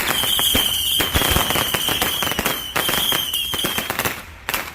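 Fireworks crackling in a rapid, dense run of pops, over a steady high-pitched whistle that stops about four seconds in. The crackling then thins out, and one last sharp crack comes near the end.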